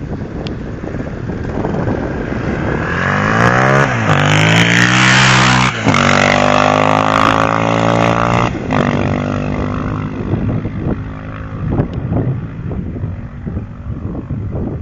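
KTM 625 SMC's single-cylinder engine accelerating hard, its pitch climbing with gear shifts about 4 and 6 seconds in, holding high revs, then dropping off near 9 seconds and fading away to a low rumble.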